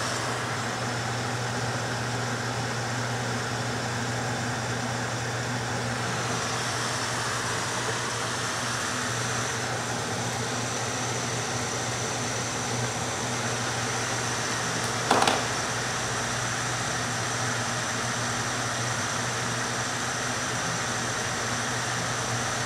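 Steady whir of a fan blowing air through insulated dryer duct, with a low hum underneath and a brief click about fifteen seconds in.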